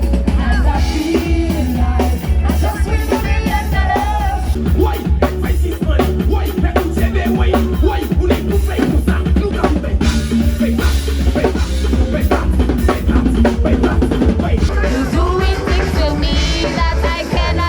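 Background music: a song with a singing voice over a steady drum beat and heavy bass.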